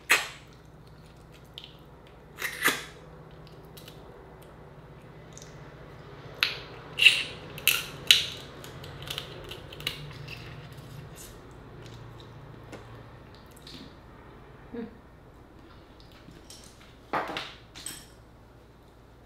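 Close-up eating sounds of Dungeness crab: a series of sharp snaps and wet sucking smacks as meat is cracked and sucked from the shell pieces. The sounds come in clusters, a few at the start, a quick run in the middle and two more near the end.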